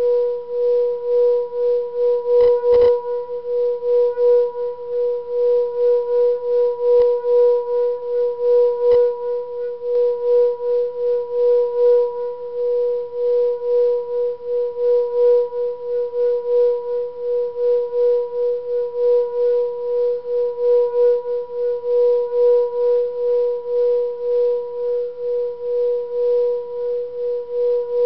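Hand-held singing bowl sung by circling a striker around its rim: one steady ringing tone with fainter overtones above it, swelling about twice a second with the soft rasp of the stick rubbing. A few light clicks near the start and twice more a few seconds later.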